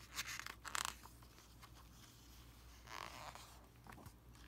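Paper page of a hardcover picture book being turned: two quick rustles near the start and a softer one about three seconds in.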